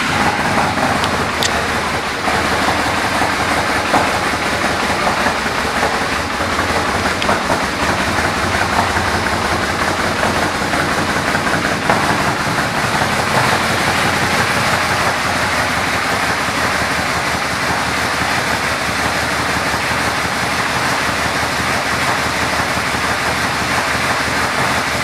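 The 2007 Yamaha Midnight Venture's V4 engine idling steadily through an aftermarket exhaust.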